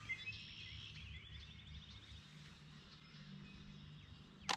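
Songbirds singing, with high chirps and a quick trill in the first couple of seconds, over a faint steady low hum. A single sharp click near the end.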